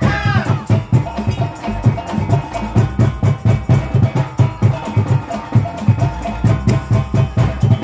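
Music for a Tari Piring plate dance, driven by a quick, even drum beat with other percussion and held melodic tones over it.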